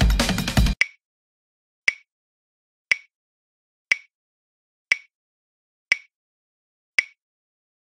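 Background music with drums cuts off suddenly under a second in, followed by a countdown timer's tick sound effect: one short, sharp tick each second, seven in all.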